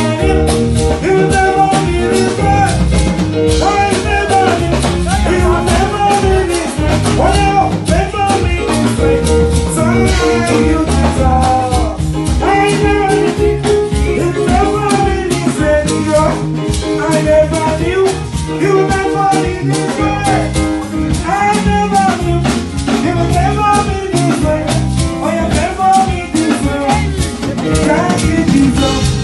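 Live band playing a steady groove with drum kit and shakers under a bending melodic lead line, in a passage without sung words.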